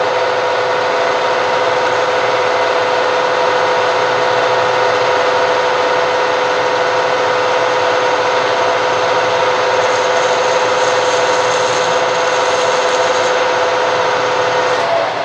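An old lathe running at steady speed with a steady whine while it turns a small step on the plastic blank, slowing to a stop at the end.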